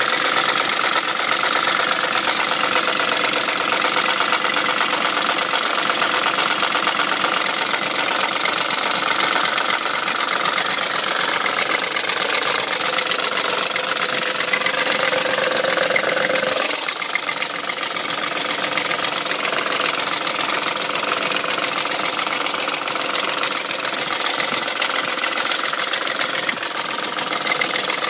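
BMW M62 V8 engine running with a continuous mechanical rattle, which the owner suspects comes from worn timing-chain guide rails. About two-thirds of the way through, the sound changes and a mid-pitched tone in it cuts off.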